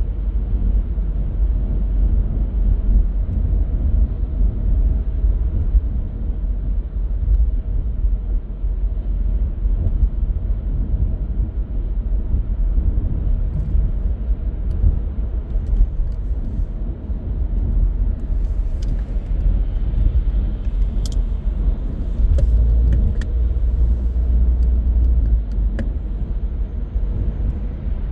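Car driving through city streets: a steady low rumble of engine and tyre noise, with a few short, irregular clicks in the second half.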